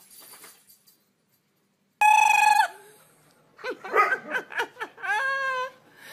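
High-pitched shrieks and yelps from a woman and a dog at rough play: a sudden loud shriek about two seconds in, then a run of short calls and a held, slightly rising call.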